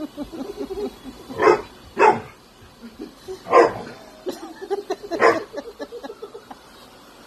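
A young Rottweiler barking four times, short loud barks with quieter grumbling sounds in between.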